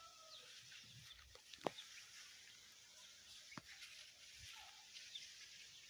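Near silence: faint rural outdoor ambience with a few distant bird chirps, and two sharp clicks, about a second and a half and three and a half seconds in.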